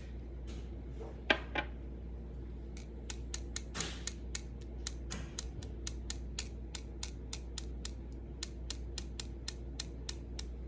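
A run of light, sharp clicks, about four a second, starting a few seconds in and stopping near the end, after two louder clicks about a second in; a faint steady low hum underneath.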